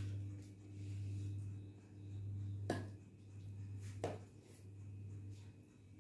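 Quiet room hum with two sharp clinks of steel cookware, pots and lids being handled among the serving dishes, a little under 3 seconds in and again about a second later.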